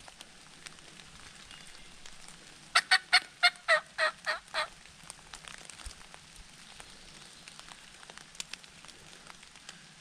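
A run of about eight turkey yelps over roughly two seconds, starting loud and fading toward the end.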